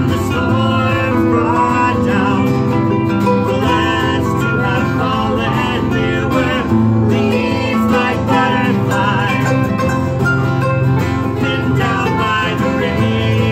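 Live acoustic music: a harp and an acoustic guitar plucking a tune together.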